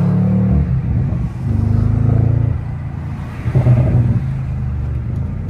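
2021 BMW M550i's twin-turbo 4.4-litre V8 accelerating through the gears with its mufflers deleted and resonators fitted, heard from inside the cabin. The exhaust note climbs in pitch and falls back at upshifts about a second in and again past two and a half seconds. It surges louder near the four-second mark, then settles to a steady drone.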